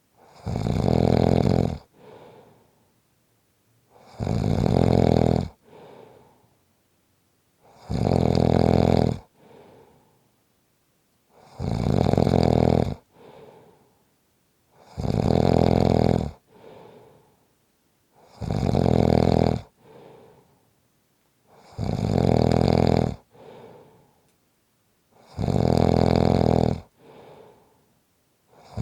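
A person snoring loudly and evenly, with a loud snore about every three and a half seconds and a shorter, quieter sound after each one.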